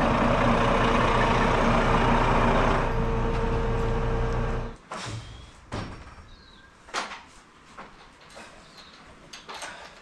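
Diesel fuel tanker truck's engine running steadily, which cuts off abruptly about five seconds in. After that, a few short knocks and clatters of a wooden ladder being handled in a barn.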